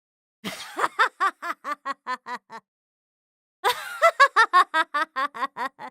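A woman laughing in two bouts of rapid "ha-ha-ha" syllables, about five a second, each bout starting with a breathy gasp and fading out, with a second of silence between them.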